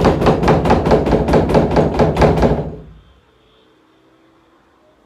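Rapid, even pounding on a locked door, about five knocks a second, stopping about three seconds in.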